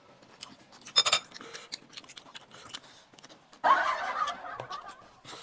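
Small clicks of eating at a table, with one sharp ringing clink of tableware about a second in and a short burst of noise about two-thirds of the way through.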